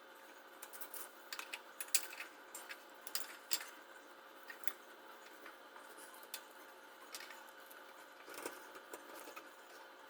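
Irregular light clicks and taps of small parts and tools being handled, over a faint steady hum.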